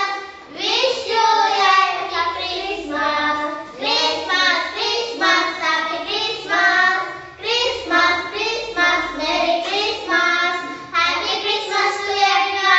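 Young girls singing a song together in high children's voices, unaccompanied, in short phrases of about a second each.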